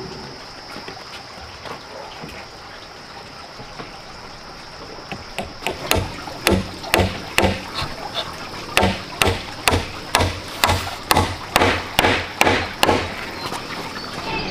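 Hammer driving a nail into a round wooden pole joint: a run of sharp blows about two a second, starting about six seconds in and stopping shortly before the end.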